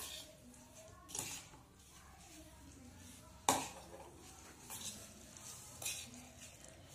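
Metal spoon clinking and scraping in a stainless steel bowl as chopped vegetables are stirred: about five sharp clinks, the loudest about three and a half seconds in.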